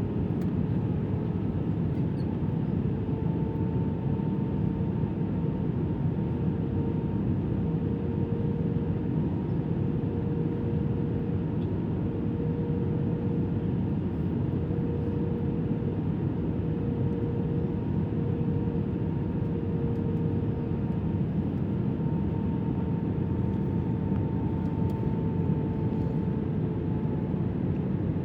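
Steady cabin drone inside an Airbus A320-200 during descent: engine and airflow noise with a faint, steady two-note hum of the engines.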